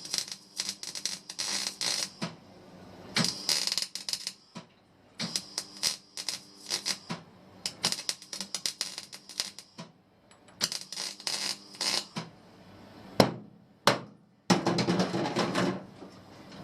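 Welding arc crackling in short bursts of about a second with brief pauses between them, as stitch welds are laid on a car's sheet-steel floor panel. Near the end comes a louder, steadier rushing noise.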